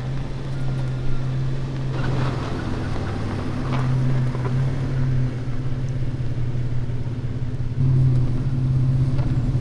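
Toyota 4Runner engine running with a steady low hum as it arrives, growing louder about eight seconds in.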